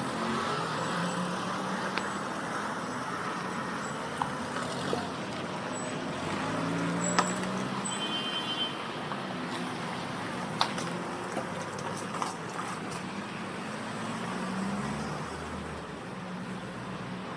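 Street traffic: vehicles running and passing, a steady noisy hum that swells and fades, with a few sharp clicks, the loudest about seven and ten seconds in.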